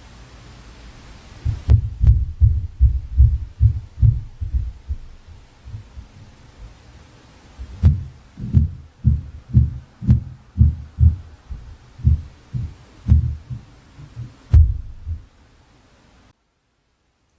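Heavy, deep thuds of footsteps from the apartment upstairs, heard through the ceiling as inter-floor noise: about two to three dull thumps a second in two runs, then the recording cuts off near the end.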